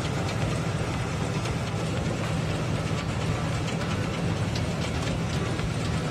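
Harvesting machine running steadily, a low engine hum under a constant rush of noise as it threshes and blows seed out of its spout onto a pile.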